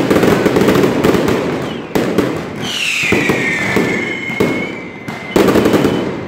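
Strings of firecrackers going off in a dense, continuous crackle, easing for moments and then bursting loud again about five and a half seconds in. Over the middle a single whistle falls in pitch for about two and a half seconds.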